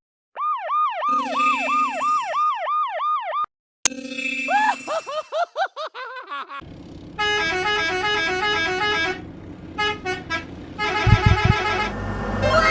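Sound-effect remix of a police car siren and a school bus horn. The siren yelps in fast rising-and-falling sweeps, about three a second, with the horn's steady blare under it. The sound cuts off abruptly with a click, then the siren sweeps return. The second half turns into choppy, stepped, effect-processed tone patterns, with low thumps near the end.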